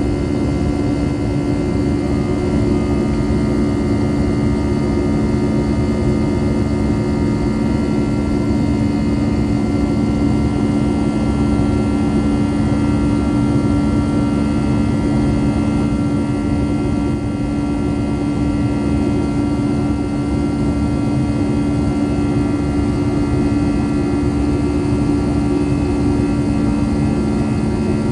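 Airbus A320-214's CFM56 turbofan engines running steadily during the climb after takeoff, heard inside the passenger cabin: a loud, unchanging drone with a strong low hum and several fainter higher tones over a rushing noise.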